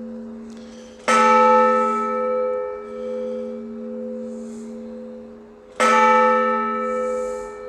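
Large Orthodox church bell tolling the blagovest: two single strokes about five seconds apart. Each stroke rings out bright and then decays into a long, low hum that lasts until the next one.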